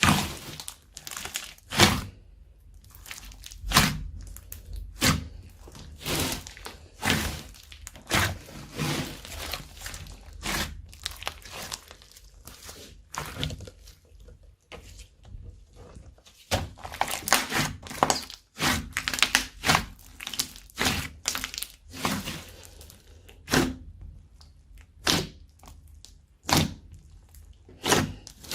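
Slime being squeezed and pressed by hand, giving a series of sharp sticky pops and clicks about once a second, with softer crackling between them.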